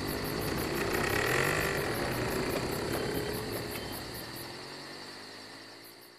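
Quad bike engine running as it pulls away, its pitch rising and falling, over rapid, regular chirping of crickets. Everything fades out near the end.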